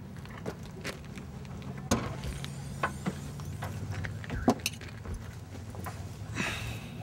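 Clicks, clinks and rattles as the rear hatch of a Peugeot 206 is opened and things in its boot are handled, with keys jangling; a sharp click comes about two seconds in. A steady low hum runs underneath.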